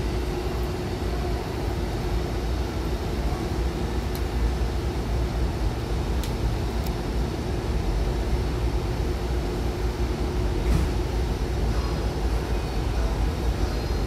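Steady hum and low rumble of a Hankyu commuter train standing at a platform with its doors open, with a couple of faint clicks about four and six seconds in.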